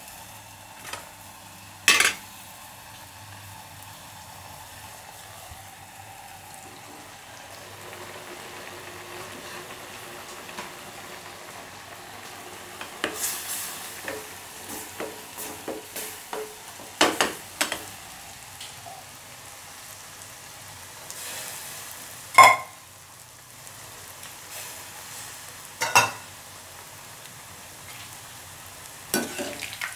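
Wheat parotta deep-frying in a kadai of hot oil, a steady sizzle throughout, broken by several sharp knocks against the pans, the loudest about two-thirds of the way through.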